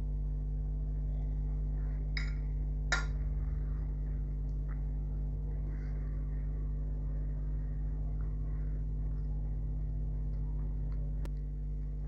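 A steady low hum, with two sharp clicks about two and three seconds in and a single faint tick near the end.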